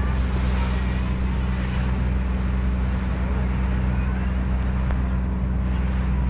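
Engine of a kempang, a small wooden passenger boat, running at a steady drone under way, with a constant hiss of wind and water over it.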